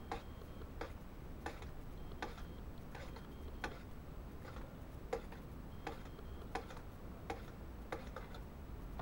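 A metal spoon clinking against the side of a metal cup while stirring soup. It makes an even run of light clicks about every three-quarters of a second, some with a short metallic ring.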